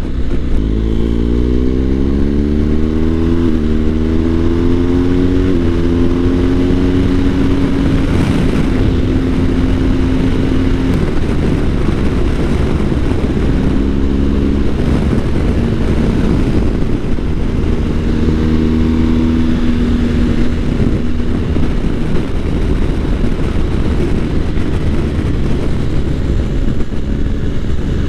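BMW R1250 GS boxer-twin engine under way. The engine note climbs and drops back in steps as it shifts up through the gears in the first few seconds, then holds steadier at cruising speed. It rises again near the end, with stretches where wind and road noise cover it.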